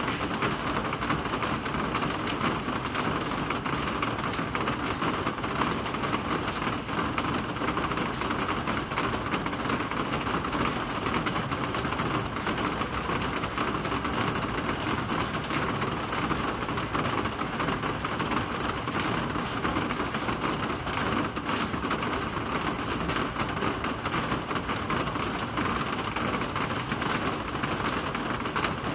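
Steady rain falling: an even hiss filled with the dense patter of many drops, unchanging throughout.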